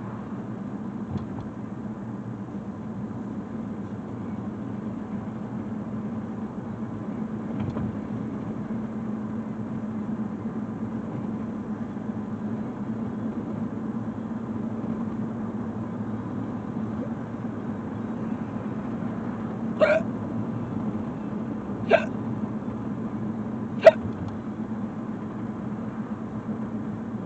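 Steady road and engine noise inside a moving car. Near the end, three short sharp sounds about two seconds apart stand out above it.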